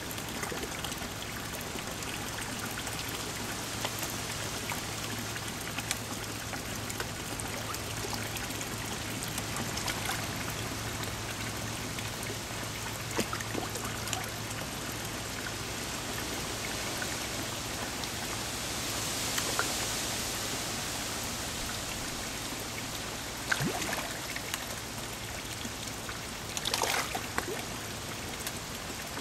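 Pond water running and trickling steadily into the pond, with a few louder splashes near the end from fish feeding on floating pellets at the surface.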